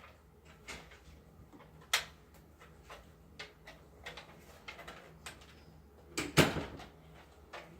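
Scattered hard plastic clicks and knocks from a Nerf toy scope being handled and fitted onto a blaster. There is a sharp click about two seconds in and a louder clatter about six seconds in.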